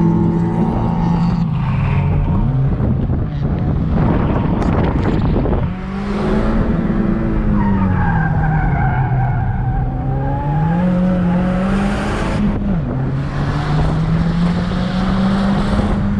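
Subaru WRX's turbocharged flat-four engine heard from inside the cabin while driven hard: its revs climb and drop several times, over a constant rush of tyre and road noise.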